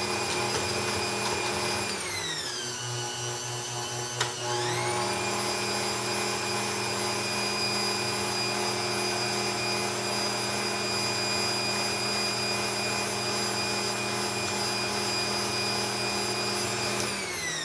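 Bosch Compact 400-watt stand mixer running, its motor giving a steady whine as it creams butter and sugar into a crumbly mixture. About two seconds in the pitch drops as it slows. A click comes a little after four seconds, and then it speeds back up and runs steady. Near the end the motor winds down with a falling whine.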